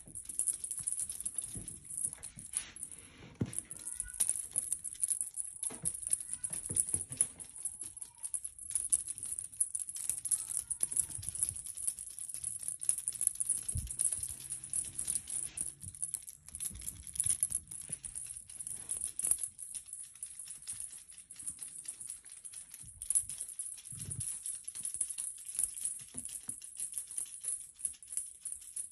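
Background music dominated by a steady, shaker-like rattle.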